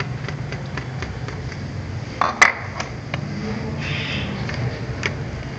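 Screwdriver working the screws on the plastic underside of an HP laptop: scattered small clicks and scrapes, with one sharper, louder click about two and a half seconds in. A steady low hum runs underneath.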